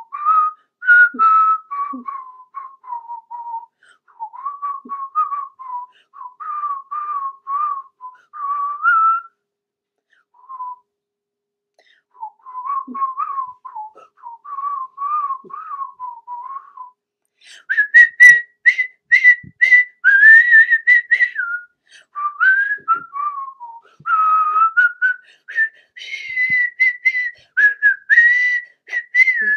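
A woman whistling a song's melody through pursed lips in short, clear notes. After a brief pause partway through, the tune jumps up to a higher, louder passage about two-thirds of the way in.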